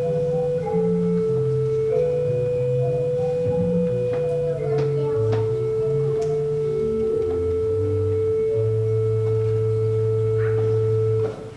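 Pipe organ playing a slow hymn tune in steady held notes over a moving bass line, ending on a long final chord that cuts off shortly before the end.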